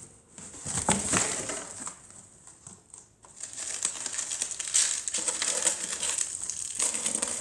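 Crinkling, crackling rustle of something being crumpled or crushed, in two stretches: a short one near the start and a longer, steadier one from about three seconds in.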